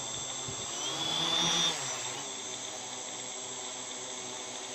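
Homemade multirotor drone's electric motors and propellers spinning on the ground, a steady whirring hum. About a second in it briefly gets louder with a rising high whine, then settles back to the steady hum.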